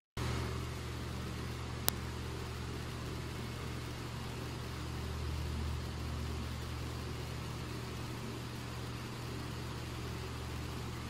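Steady low machine hum, with one sharp click about two seconds in.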